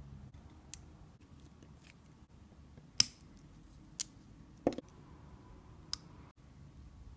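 A few sharp snaps and clicks as thin cured resin flash is trimmed and broken off a cast resin dinosaur model, the loudest about three seconds in.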